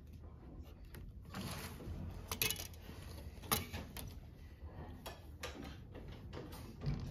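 Pencil scratching along a drafting straightedge on paper, then the straightedge sliding across the drafting board, with several sharp clicks and knocks as it is moved and set down.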